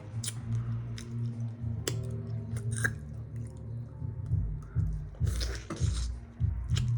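Open-mouthed chewing and lip smacking: short wet clicks and smacks scattered through, over background music with a steady bass line.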